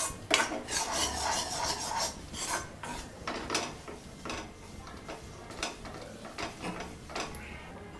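A metal spoon scraping and stirring roasted gram flour around a metal kadai, in irregular rasping strokes that are thickest in the first few seconds.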